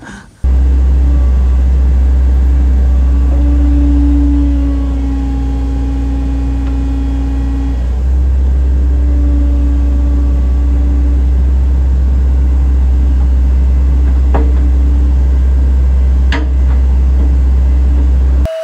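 Digger's diesel engine running steadily and loud, close to the microphone, with a couple of sharp knocks near the end. It starts abruptly just after the start and cuts off suddenly near the end.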